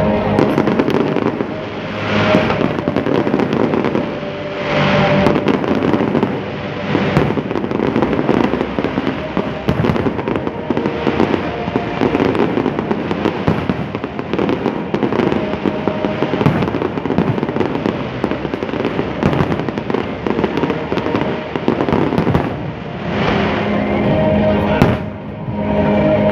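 Aerial fireworks display: shells bursting one after another in a rapid, dense barrage of bangs and crackling, with a few brief lulls.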